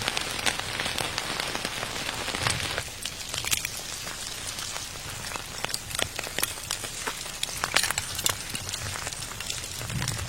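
Rain falling on a surface: a steady hiss dotted with many small sharp ticks of drops, easing a little about three seconds in.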